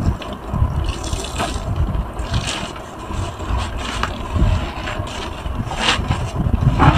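Wet, sudsy foam sponges squeezed and kneaded by gloved hands, squelching in irregular crackly bursts every second or two.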